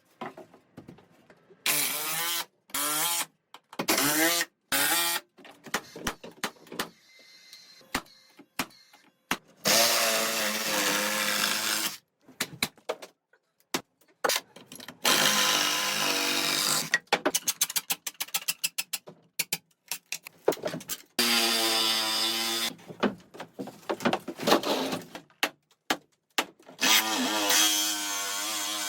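Power tools running in a string of short, abruptly cut segments, their motor whine rising and falling in pitch as they speed up and slow down.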